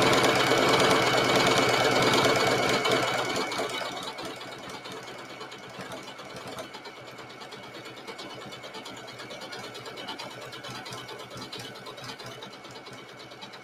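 Domestic sewing machine stitching through layered leather scraps, running fast and loud for the first few seconds, then noticeably quieter for the rest, and stopping at the very end.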